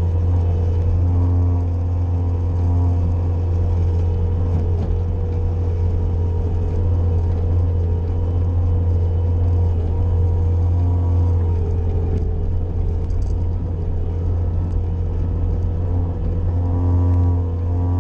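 Bobcat skid-steer loader engine running steadily while plowing snow, its pitch dipping and recovering slightly a few times as the load changes.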